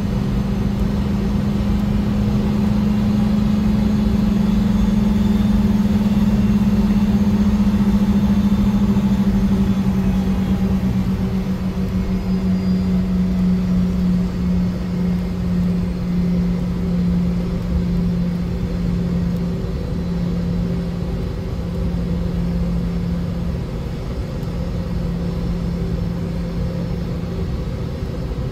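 Cabin sound of a Boeing 717-200 taxiing: the steady drone of its Rolls-Royce BR715 turbofans at taxi power over a low rumble, the drone settling slightly lower in pitch about ten seconds in.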